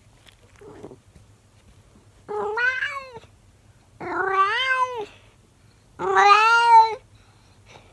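Elderly calico cat meowing three times, each a long drawn-out call of about a second with a slight rise and fall in pitch, a second or so apart, made right up at the microphone.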